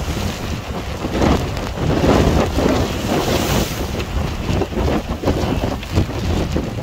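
Strong storm wind buffeting the microphone in uneven gusts, with a choppy sea splashing and breaking against shoreline rocks. The wind and surf are loudest about two to three seconds in.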